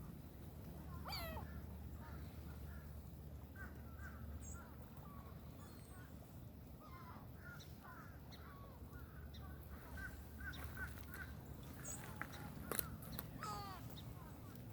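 Birds calling: a scatter of short calls through the middle, with a steeply falling call about a second in and another near the end, over a steady low rumble.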